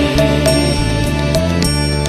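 Devotional mantra music in an instrumental stretch: sustained notes with a few light percussive taps, between sung chant lines.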